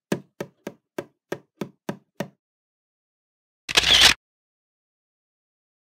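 Eight short knocks at a steady pace, about three a second, as footstep sound effects, then after a pause a loud half-second burst of noise as a camera shutter and flash go off.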